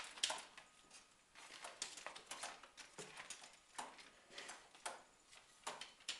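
A cat climbing a wooden expanding lattice baby gate: irregular light clicks and knocks as its claws grip the slats and the gate rattles under its weight.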